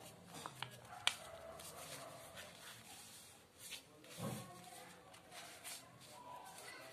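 Faint rustling and creasing of origami paper being folded and pressed flat by hand on a table, with a few sharp ticks about a second in and a short muffled sound around four seconds in.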